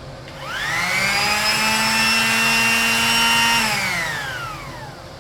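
Electric sander switched on: its motor whines up to speed in about half a second, runs with a steady hum for about three seconds, then is switched off and winds down with a falling pitch. It sounds like a vacuum cleaner.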